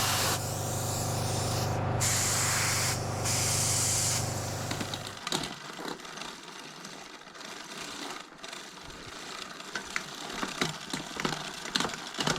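Hissing in bursts over a steady low hum for about five seconds, then the hum and hiss stop, leaving scattered light clicks and taps of small parts being handled.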